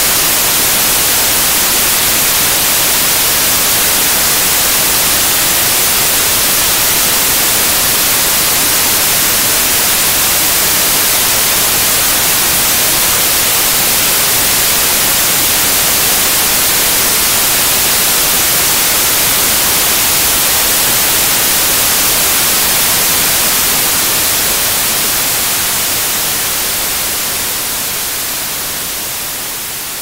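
Synthetic white noise: a steady, even hiss with its energy weighted toward the high end, which starts to fade down about three quarters of the way through.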